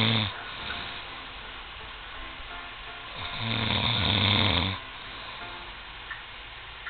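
A man snoring: the tail of one snore at the very start, then one loud, low-pitched snore lasting about a second and a half around the middle, with quieter breathing between.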